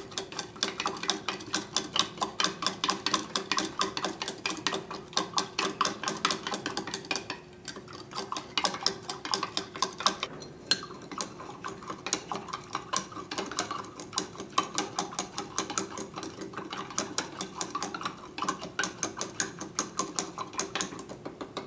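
Glass stirring rod clinking rapidly and evenly against the wall of a small glass beaker, several taps a second with a short pause about eight seconds in, as solid sodium sulfate is stirred to dissolve in copper sulfate solution.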